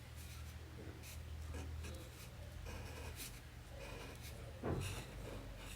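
Pen strokes scratching on cardstock, a series of short irregular strokes with one louder rub about three-quarters of the way through.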